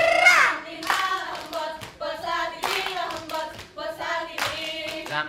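Saman dancers clapping and slapping their bodies in fast unison rhythm while singing together. A long held sung note breaks off with a downward slide just after the start, then the sharp slaps come in quick succession under the chant.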